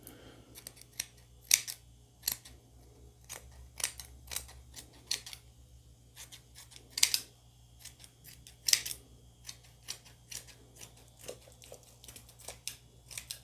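Scissors snipping through embroidered net fabric in an irregular series of short, sharp cuts, a few of them noticeably louder.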